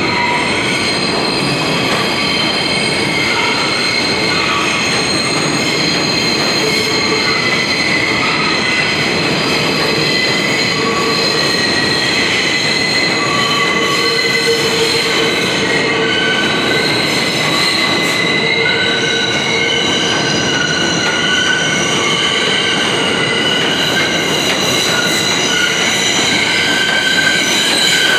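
Subway train's steel wheels squealing on curved track: several high-pitched tones at once over the running rumble, continuous, as the train approaches and pulls in alongside the platform, a little louder near the end.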